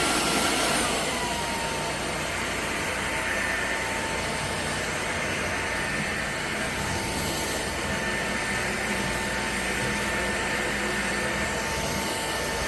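Cordless stick vacuum (drepre K7 Pro) running with a steady motor whine and airflow hiss. About a second in, the whine glides down in pitch and the sound gets a little quieter, then it runs steadily.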